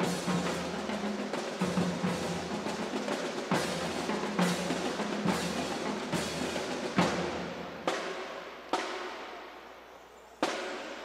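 Junior marching band playing: brass holding chords over drums and snare rolls, with a heavy accent about every one and a half to two seconds. About eight seconds in the brass drops out, leaving single percussion strikes that ring and fade.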